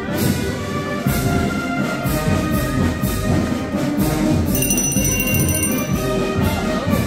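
Brass band playing a march: trombones and trumpets holding sustained chords over a steady percussion beat.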